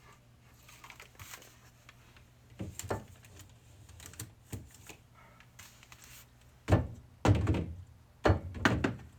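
Drink bottles being set down and shuffled on refrigerator shelves: a few light knocks, then several louder thunks in the last few seconds.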